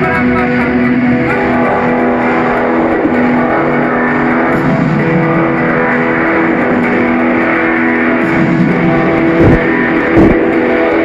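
Loud electro house music from a DJ set: sustained synth chords over a dense beat, with two heavy low booms near the end.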